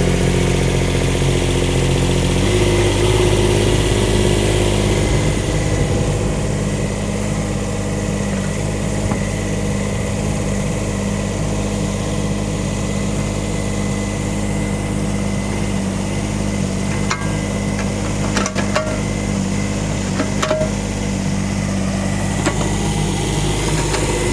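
Kubota mini excavator's diesel engine running steadily. Its note shifts about two and a half seconds in and again near the end. A few sharp knocks come in the last third.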